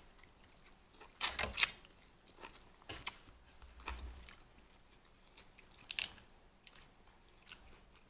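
Close-miked chewing and eating of a seafood boil, with scattered sharp crackles and wet clicks of food and shells between quiet stretches.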